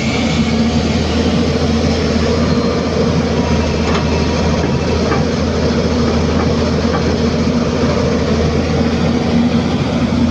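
Diesel engine of a Hyundai 215 hydraulic excavator running steadily under work, a constant low drone with a few faint clicks.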